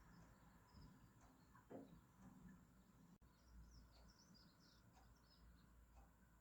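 Near silence, with faint, high bird chirps in a quick cluster a little past halfway and a single soft thump about two seconds in.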